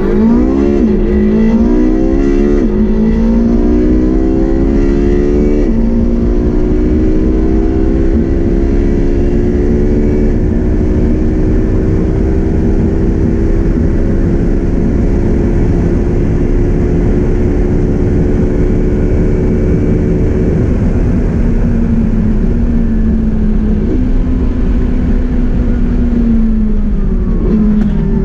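Porsche 918 Spyder's 4.6-litre V8 at full throttle, heard from inside the cabin. The engine note climbs steeply and drops at each of four upshifts, then rises slowly in top gear under a heavy rush of wind and road noise. Near the end the revs fall away as the car slows.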